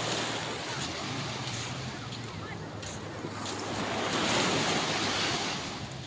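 Surf breaking and washing up the beach. It comes in two swells, the second and louder one about four to five seconds in.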